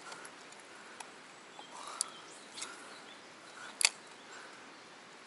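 Quiet outdoor ambience by the water, broken by a few short sharp clicks, the loudest nearly four seconds in.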